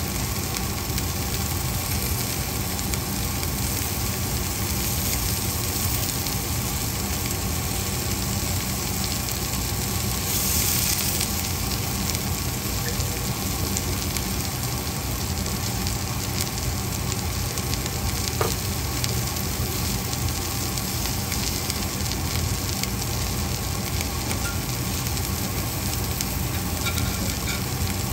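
Green beans and onions sizzling steadily as they fry in a pan. The sizzle swells briefly about ten seconds in, and there is a single sharp click a little past halfway.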